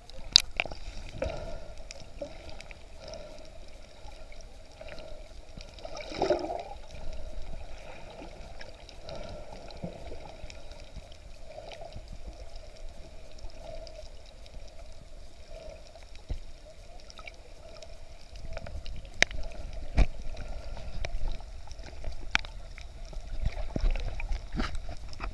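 Muffled underwater sound picked up by a submerged camera: a steady faint hum with gurgling water and scattered sharp clicks and knocks. About six seconds in there is a brief louder swirl, and the low rumbling and knocks grow stronger near the end.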